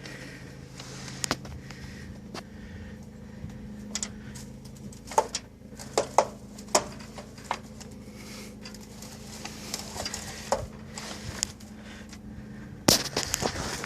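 A steady low mechanical hum with scattered sharp clinks and knocks over it, most of them in the middle and a loud one near the end.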